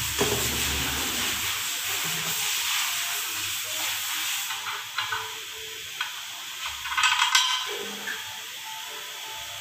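Steady hissing background noise that fades about halfway through, then light clicks and a brief metallic clatter a little past the middle as an engine's oil cooler cover and parts are picked up and handled.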